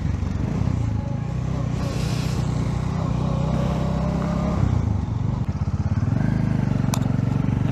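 Motorcycle engine running under the rider while riding through city traffic, heard from the bike itself; about six seconds in the note settles into a slower, even pulsing beat.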